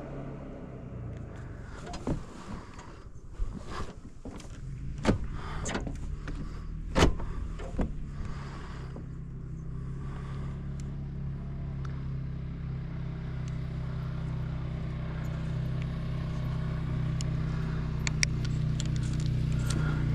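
Side-by-side UTV engine running low and steady, with a series of sharp knocks and clatters in the first half, then growing slightly louder toward the end.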